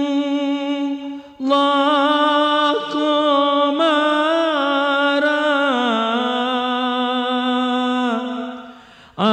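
A man chanting a marsiya, an Urdu elegy, unaccompanied, holding long drawn-out notes with a wavering ornament. He breaks for breath about a second in, steps down in pitch around six seconds in, and trails off near the end.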